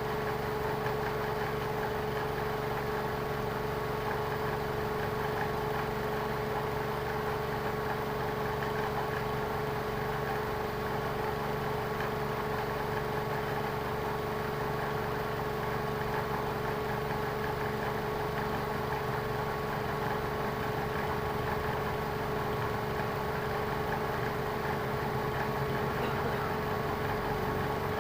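Lexus car engine idling steadily, with a constant tone over its running.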